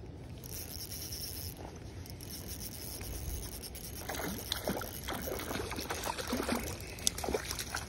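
Hooked trout thrashing and splashing at the water surface as it is drawn in to the landing net: a flurry of short, irregular splashes from about halfway through. Before the splashing there is a steady high hiss.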